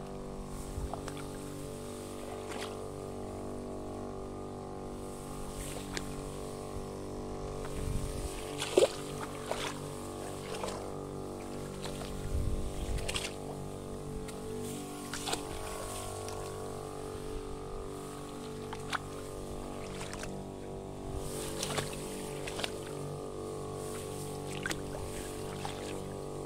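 Small engine of a motorized crop sprayer running steadily at constant speed, driving the pump that feeds the spray lance. A brief sharp knock stands out just under nine seconds in.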